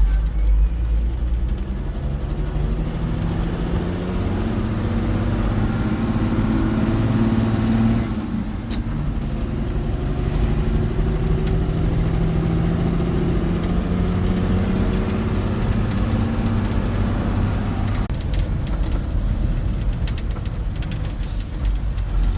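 A fire truck's engine pulling away and accelerating through its gears. Its pitch climbs for several seconds, drops at a gear change about eight seconds in, then climbs again until about eighteen seconds in, over a steady low rumble.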